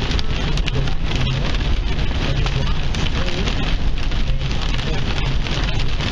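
Heavy rain drumming on a car's windshield and roof, with many sharp hits throughout, heard from inside the moving car over a low steady road and engine rumble.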